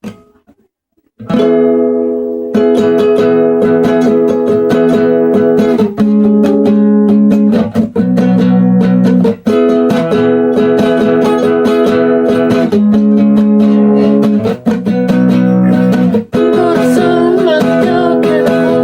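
Acoustic guitar strummed in steady chords, starting about a second in, with the chord changing every couple of seconds.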